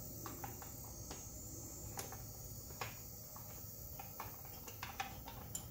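Faint, irregular light clicks and ticks of hands working a wire connector loose on a motorcycle, over a steady faint hiss.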